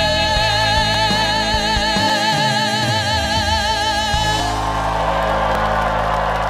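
A male singer holds the song's final note with a wide vibrato over a backing band. About four and a half seconds in, the note ends and audience cheering and applause take over.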